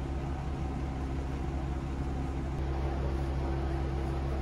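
Diesel railcar's engine idling steadily while the train stands at the platform, a low even hum heard from inside the car.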